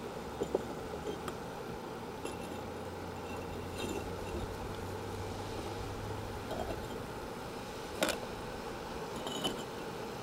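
Clay bricks being set down and shifted against one another: a few scattered hard clinks and knocks, the loudest about eight seconds in, over a steady low background noise.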